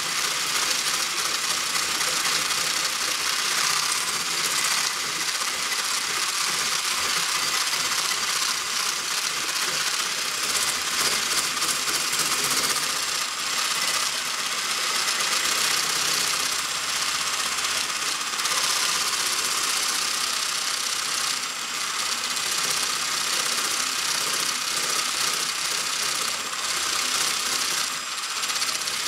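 Electric mixer running steadily, beating egg yolks with sugar and vanilla.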